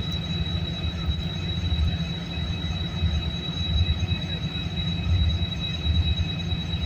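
Korean-built diesel-electric locomotive's engine running steadily: a low, pulsing rumble with a thin, steady high whine over it.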